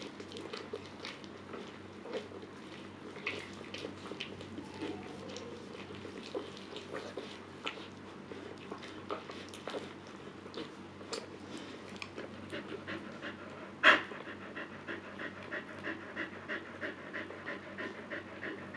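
Husky bitch panting in rhythm while in labor between puppies, with small clicks throughout and one sharp, louder sound about fourteen seconds in.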